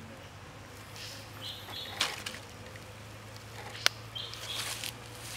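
A bird calling in the background, a short two-part high note repeated about every three seconds, with a few sharp clicks, the sharpest a little before the end.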